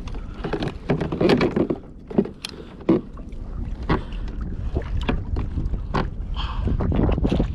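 Water slapping and splashing against a Hobie Revolution 13 kayak's hull in a choppy sea, with a few sharp irregular knocks and wind rumbling on the microphone.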